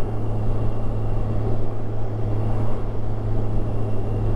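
Kawasaki Ninja 1000SX inline-four running at a steady cruise, a constant low drone mixed with wind and road rush on a helmet-mounted camera microphone.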